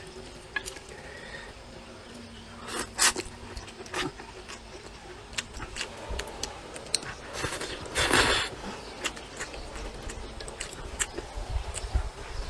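Close-up eating sounds: spicy vermicelli noodles slurped and chewed, with small clicks of chopsticks against a metal bowl. A short slurp comes about three seconds in, and a longer, louder one about eight seconds in.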